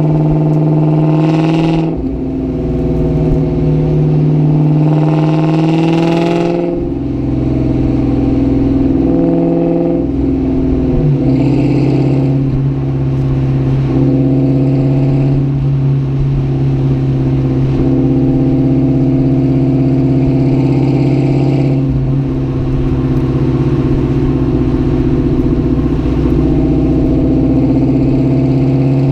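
2004 Ford Mustang GT's 4.6-litre V8 engine and exhaust running under way. The engine note climbs twice, near the start and about six seconds in, and drops back sharply each time, then holds a fairly steady note for the rest of the stretch.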